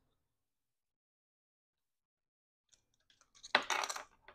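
Silence, then near the end a few faint clicks and a short burst of rustling and clicking: hands handling a micro SD card at the card slot of a security camera.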